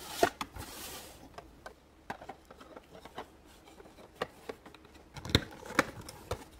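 Plastic toy playset pieces being handled and fitted together: scattered light clicks and taps, with a brief rustle at the start and a louder knock about five seconds in.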